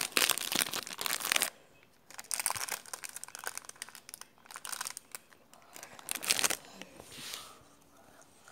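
Crinkling and rustling close to the microphone, coming in several bursts with short quiet gaps between them.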